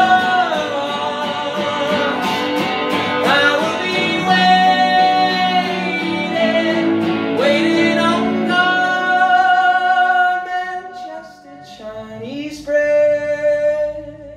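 A man singing long held notes with an electric guitar. About ten seconds in the guitar falls away and the music drops quieter, and near the end a single sung note is held on its own.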